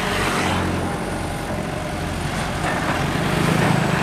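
Sumitomo 265 crawler excavator's diesel engine working hard as the machine struggles to crawl through soft, sticky mud. It runs steadily and grows louder about three seconds in.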